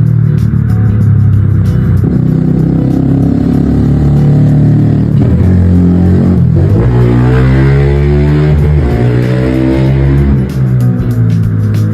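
Loud background music with heavy bass, and a stretch of gliding tones a little past the middle.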